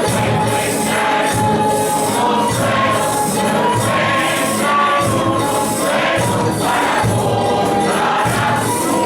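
Villancico, a Spanish Christmas carol, sung by a group of voices over instrumental accompaniment, with percussion keeping a steady beat.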